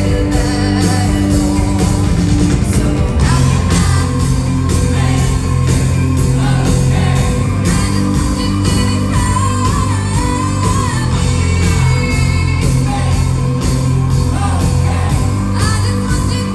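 Live rock band playing in a concert hall through the PA: electric guitars, bass and drums under a female lead vocal, heard from within the crowd.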